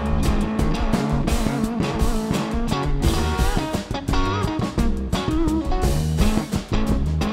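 Funk jam band playing live: a Stratocaster-style electric guitar over bass and drum kit, with a baritone saxophone.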